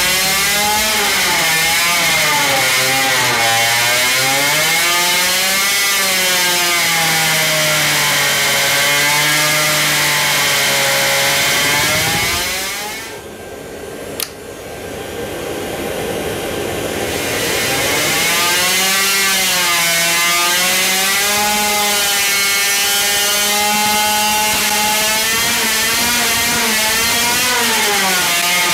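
Supercharged 50cc two-stroke engine running on a dyno, its revs rising and falling. About twelve seconds in it dies away, a single sharp pop follows, and from about seventeen seconds it is running and revving again.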